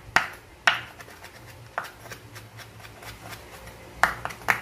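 Chef's knife chopping moringa (malunggay) leaves on a wooden cutting board: a few sharp, irregular chops, two in the first second and two close together near the end.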